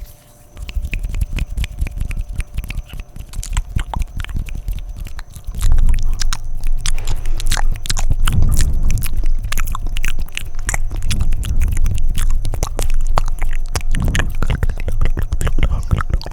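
Fast, wet mouth sounds right at the microphone: rapid tongue and lip clicks and smacks, growing louder about five and a half seconds in.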